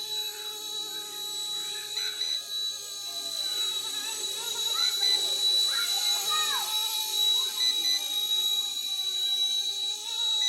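RC Era C189 RC helicopter in flight on 3D-printed rotor blades: a steady electric motor and rotor whine made of several held tones that waver slightly in pitch as it is flown.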